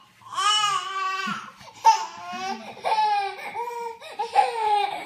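A baby crying in four short, high-pitched wails, each rising then falling in pitch.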